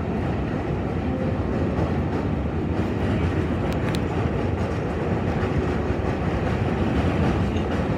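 Running noise of an R188 subway car on the elevated 7 line, heard from inside the car: a steady rumble of wheels on rail, with a couple of sharp clicks about four seconds in.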